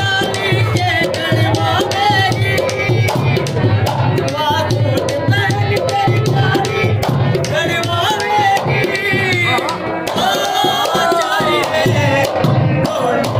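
Rajasthani folk music for a kathputli puppet dance: a hand-pumped box harmonium playing the melody over a steady, even drum beat, with a higher wavering melodic line on top.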